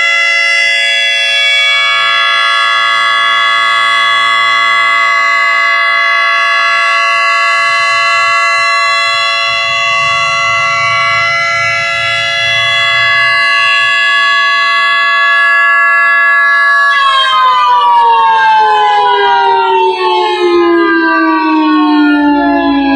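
Federal Signal 2T22 dual-tone mechanical siren sounding a steady alert tone, a held two-note chord. About seventeen seconds in, its power cuts and it winds down, the pitch falling steadily.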